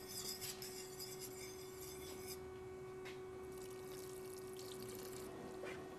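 Warm vegetable broth poured from a cup into a pan of mashed black beans, a faint liquid splashing hiss that eases off after about two seconds and comes back more weakly.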